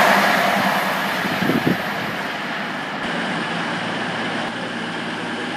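The rushing noise of an express train passing at speed fades away in the first second or two. It leaves the steady hum of a CrossCountry Voyager diesel multiple unit's underfloor diesel engines running at the platform, with a brief double bump about a second and a half in.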